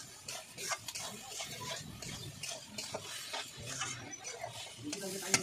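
Metal spatula scraping and clinking against a metal kadai as soya chunks and potato pieces are stirred while frying, with a sharper clink about five seconds in.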